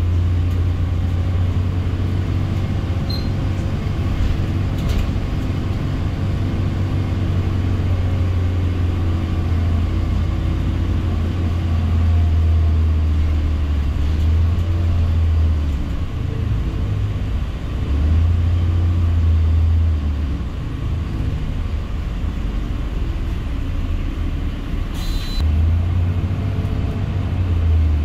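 City bus heard from inside the cabin while it drives: a steady low engine and road rumble that eases off and comes back a few times as the bus slows and pulls away. There is a brief hiss near the end.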